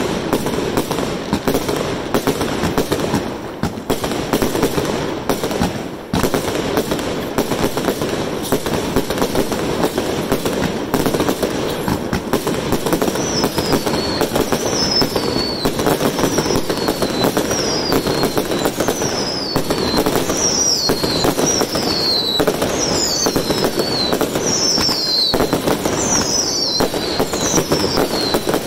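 Fireworks going off without a break: dense crackling and popping from the aerial bursts. From about halfway through, a run of short high falling whistles repeats roughly once a second.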